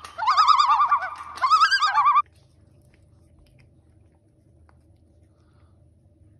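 A loud, fast-warbling whistle-like tone in two stretches that cuts off suddenly about two seconds in, leaving only a faint steady hum.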